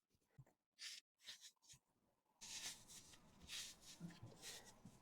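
Near silence with faint, scattered rustling and light handling noises, typical of a toy and its packaging being handled.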